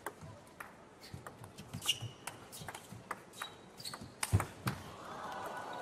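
Table tennis rally: the ball clicking off rackets and the table in an irregular run of sharp knocks, the loudest a hard hit a little over four seconds in. A few short high-pitched squeaks, typical of players' shoes on the court floor, come between the hits.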